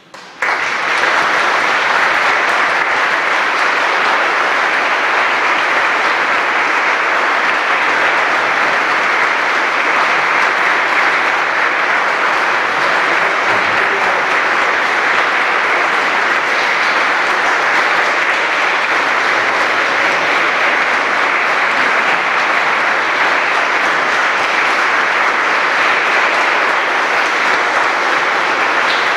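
Audience applauding, breaking out about half a second in and holding steady.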